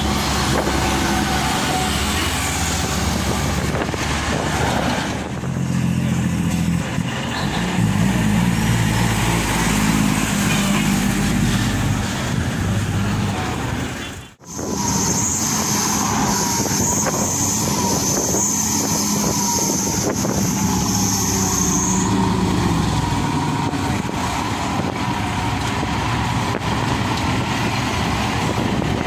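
Road traffic of heavy diesel dump trucks and cars passing close by, engine drone rising and falling as they go. The sound cuts out briefly about halfway, then resumes with a steady high hiss for several seconds.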